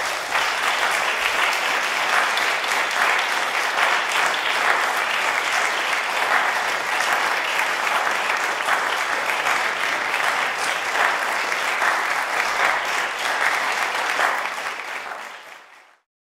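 Audience applauding, a dense steady clatter of many hands clapping that fades out near the end.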